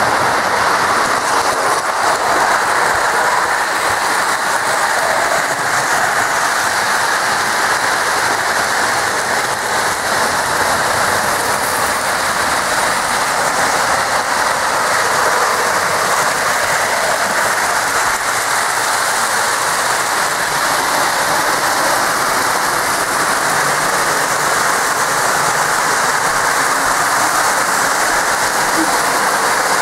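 Several Lionel O-gauge model trains running together on three-rail track, giving a steady, even noise of wheels on rail and running motors.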